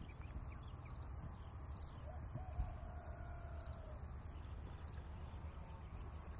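Faint outdoor ambience: a steady high chorus of insects, with one distant rooster crow starting about two seconds in. A small faint knock comes partway through.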